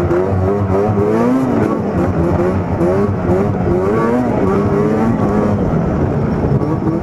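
2005 Arctic Cat F6 snowmobile's 600 two-stroke twin engine running hard along a trail, its pitch rising and falling again and again as the throttle is worked on and off.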